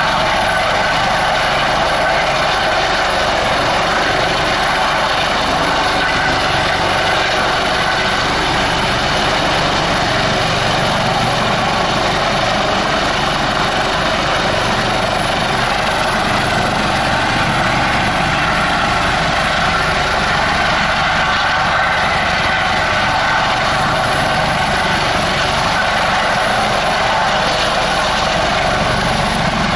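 Eurocopter AS365 Dauphin helicopter hovering just above the ground: loud, steady rotor and turbine noise with the humming whine of its fenestron ducted tail rotor.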